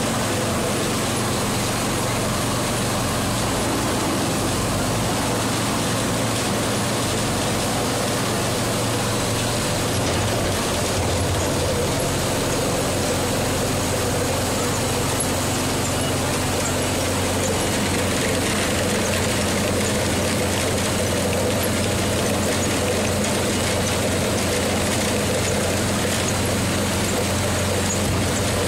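Farm machinery running steadily: a telehandler's diesel engine together with the spiral rollers of an apple grading and washing line as apples are fed through, a constant mechanical hum and rumble.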